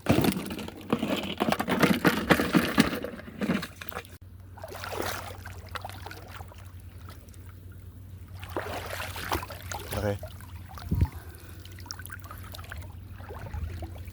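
Water splashing and sloshing in irregular bursts, busiest in the first few seconds and again near the end.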